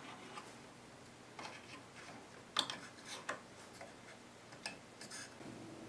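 Faint, scattered small clicks and scrapes of a pocket-knife blade prying power FETs away from the rear of a car amplifier's metal casing, about six irregular ticks.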